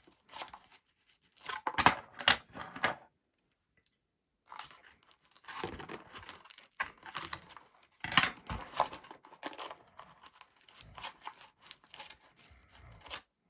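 Forceps being forced and twisted in a hole through a small model wing to widen it, the material giving in several irregular scratchy bursts with short pauses between.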